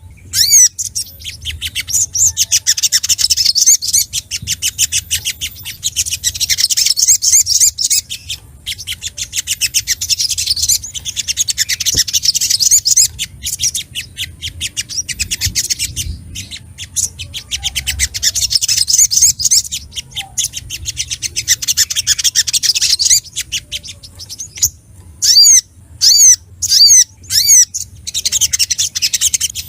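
Little spiderhunter (sogok ontong) calling excitedly, as a bird does when agitated and seeking a rival. Long runs of rapid high chips lasting several seconds each, broken by short pauses, with a few separate sharp calls near the end.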